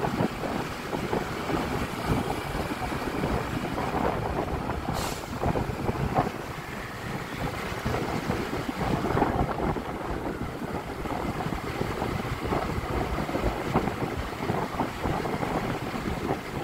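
Wind rushing and gusting on the microphone of a Honda Click 125i scooter under way, over the rumble of its engine and the road.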